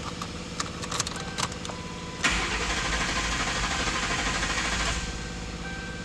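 2007 Mercury Grand Marquis's 4.6-litre V8 turned over by its starter for about three seconds, beginning about two seconds in, without catching: a crank-no-start, with no fuel reaching the engine.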